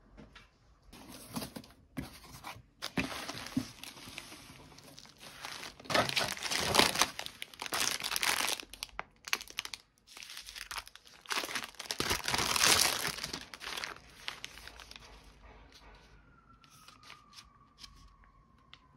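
A cardboard parcel being unpacked by hand: tearing and plastic packaging and bubble wrap crinkling in irregular bursts, dying away about three-quarters of the way through.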